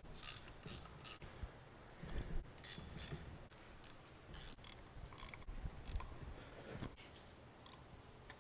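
Hand ratchet clicking in short spells as the turbocharger's housing bolts are tightened back down after the housings have been clocked, with small metal clicks of the tool on the housings.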